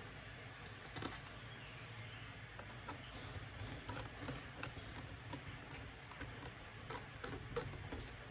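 Faint small clicks and taps of a screwdriver and screws as the bottom case of a MacBook Pro Mid 2012 is screwed back on, with a few sharper clicks near the end.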